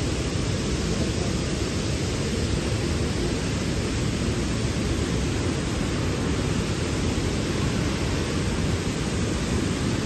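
Steady rush of a tall waterfall, an even, unbroken noise heaviest in the low end.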